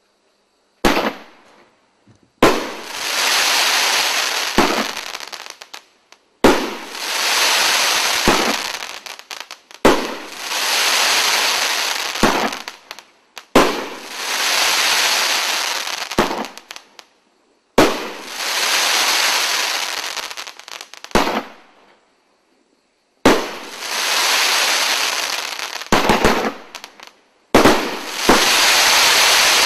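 A 500 gram consumer firework cake with 2.5-inch tubes firing shot after shot, about every three to four seconds. Each shot is a sharp bang followed by a few seconds of dense crackling from the glittering star burst, which fades before the next bang.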